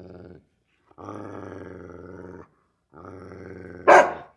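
Doberman growling, two long, low, steady growls, then one sharp, loud bark near the end.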